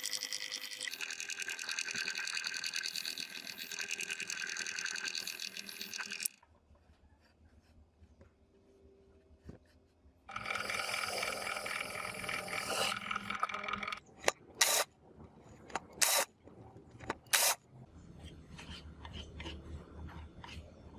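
Bench drill press running and boring holes in a melamine-faced board, stopping for a few seconds partway, then running again. Several sharp knocks follow, then a plastic spreader scraping contact glue across the wood near the end.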